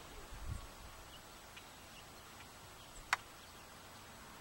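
Faint outdoor ambience with a few faint, short bird chirps. A brief low rumble comes about half a second in, and a single sharp click about three seconds in.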